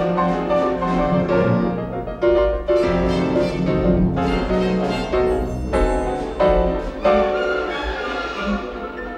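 Grand piano and symphony orchestra playing a classical piano concerto. Strong piano chords stand out over the strings several times, and the music grows quieter near the end.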